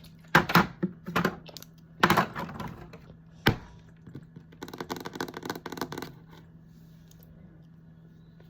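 Clicks and taps of a plastic cosmetic container being handled: clusters of sharp clicks, one loud snap about three and a half seconds in, then a quick run of rapid clicks that stops about six seconds in.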